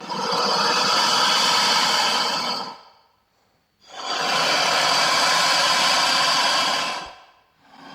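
Creature sound effect in the style of the Predator and Alien films: two long, breathy hisses of about three seconds each, with about a second's gap between them.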